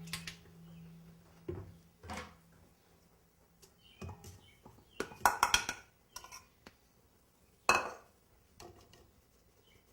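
Sifting confectioner's sugar into a stand mixer bowl: a handful of separate knocks and clinks of the sifter and utensils against the bowl. A low steady stand-mixer hum fades out in the first few seconds.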